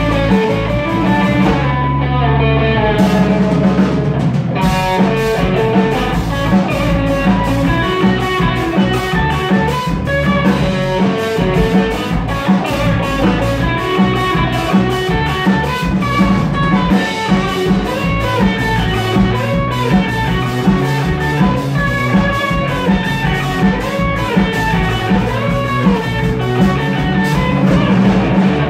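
Live instrumental rock from a trio: electric guitar and an EWI (electronic wind instrument) playing melodic lines over a drum kit. The drums drop out for a couple of seconds near the start and come back in about four and a half seconds in.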